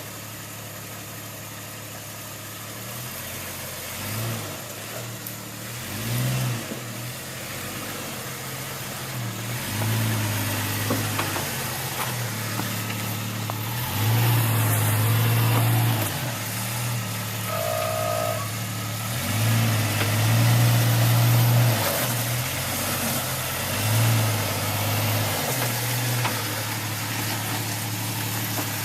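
Off-road 4x4's engine idling and revving in repeated bursts of a few seconds each while the truck crawls over a rock obstacle; the two longest revs come about halfway through and again a little later.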